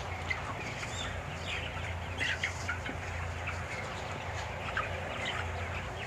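A flock of 27-day-old broiler chickens calling, with many short scattered clucks and cheeps over a steady low hum.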